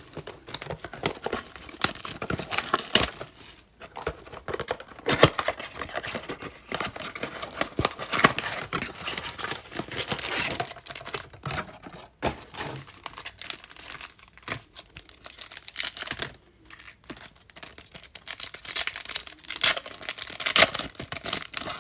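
A foil trading-card pack wrapper being torn open and crinkled by hand, with irregular crackling and rustling throughout.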